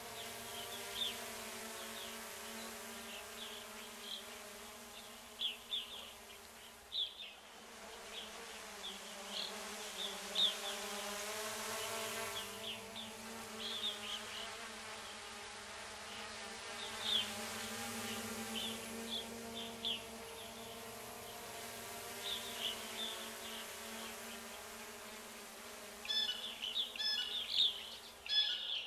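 A steady buzzing hum with birds chirping over it; the chirps come thick and fast near the end.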